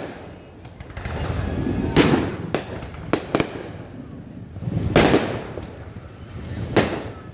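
New Year aerial fireworks bursting: a string of sharp bangs over a rolling rumble, with a quick cluster about two to three and a half seconds in, another pair about five seconds in, and one more near the end.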